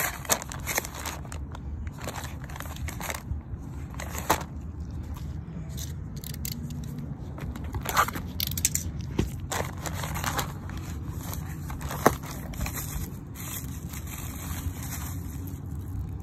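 Paper mailer, cardboard box and bubble wrap rustling and crinkling as they are handled and opened, with scattered irregular clicks and scrapes over a steady low background noise. A sharp click about twelve seconds in is the loudest moment.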